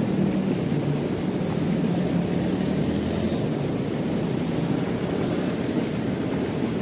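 Swift, murky river water rushing steadily past the bank, an even low rush.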